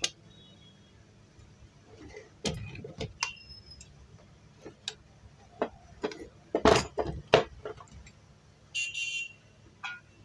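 Irregular sharp metal knocks and clinks from tapping and handling the parts of a sewing machine head to free a jammed part. The loudest is a quick cluster of knocks about two-thirds through, and a short scraping rattle comes near the end.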